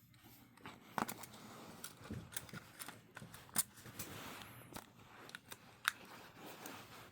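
Sony Cyber-shot compact camera's zoom lens mechanism grinding with irregular sharp clicks as it tries to extend, the sign of a faulty lens on a camera that won't power up.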